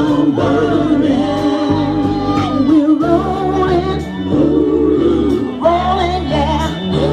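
A song played over loudspeakers: a singer holding long notes over a steady bass line.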